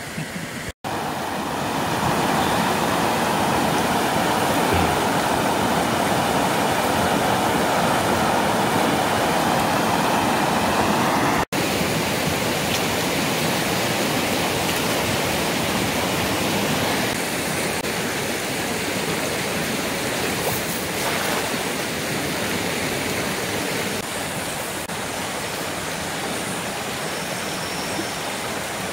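Steady rush of a river running over rapids, with two brief breaks in the sound.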